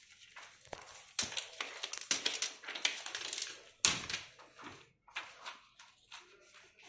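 Plastic membrane sheets of a Dell desktop keyboard rustling and crinkling as they are handled and laid flat in the opened case, with irregular clicks and knocks of plastic; a sharp knock about four seconds in is the loudest.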